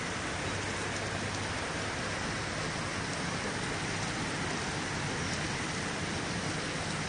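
Steady bubbling and splashing of water from the aeration in a row of aquarium tanks, with a faint low hum underneath.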